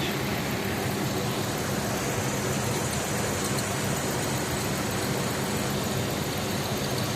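2000 Ford Ranger 3.0 V6 idling steadily, with a little repeated squeak, squeak coming from the alternator. The owner puts it down to the alternator's insides after the truck sat unused and got a little rusty.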